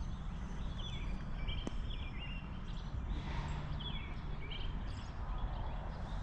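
A small bird chirping in short, high, repeated notes over a steady low outdoor rumble.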